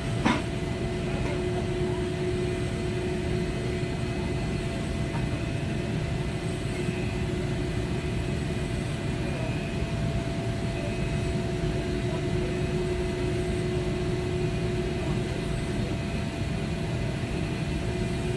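Steady hum and hiss of TIG welding on a stainless-steel pipe-to-flange joint, over a low machinery rumble, with one sharp click just after the start.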